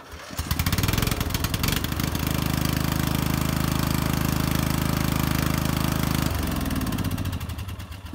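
A riding mower's 15.5 hp overhead-valve Briggs & Stratton engine is started on the key and catches almost at once after a brief crank, then runs steadily. Its new ignition coil and spark plug have cured a no-spark fault, and it fires first time. About six seconds in the engine drops to a lower, quieter note that fades away.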